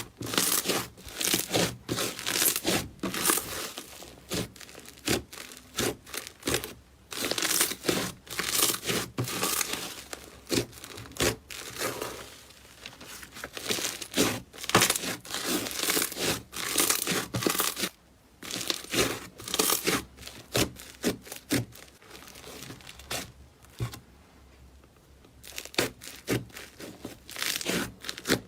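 Slime being squeezed and pressed by hand, giving dense runs of crackling, popping clicks with a few brief pauses.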